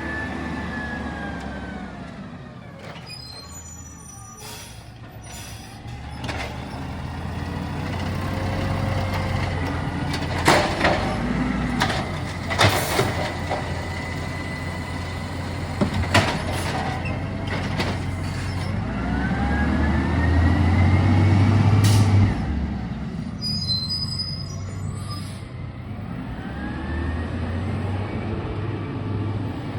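Garbage truck at work: its diesel engine revs up twice, the second time dropping off abruptly about two-thirds of the way through, with several sharp bangs in between.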